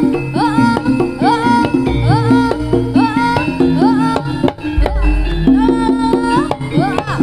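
Live jaranan ensemble music: a high melody of repeated upward-sliding notes over steady pitched percussion and drums.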